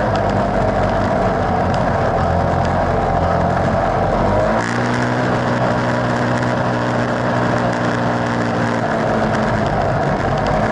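Polaris ACE side-by-side's engine running while driving over sand, a steady drone. About halfway through the low rumble drops and the drone settles into a smoother, even tone, filling out again near the end.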